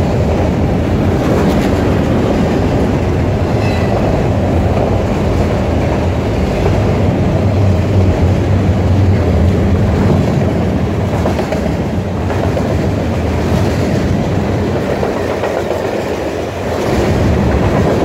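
A freight train's cars passing close by at speed: autoracks, lumber-loaded centerbeam flatcars and boxcars. Their steel wheels make a steady, loud rumble on the rails, with occasional knocks.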